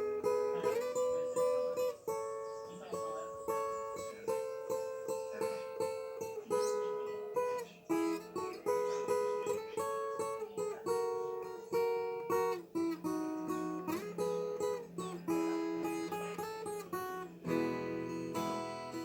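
Instrumental break of a moda de viola: a viola caipira plays a melody of plucked notes, often in pairs of notes together, over a lower strummed string accompaniment.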